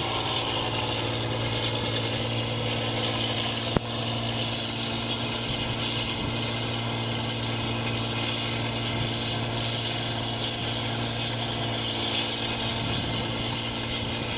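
Paddy combine harvester's engine running loud and steady with a constant hum and hiss, the '8060' machine known for its loud noise. A single sharp click about four seconds in.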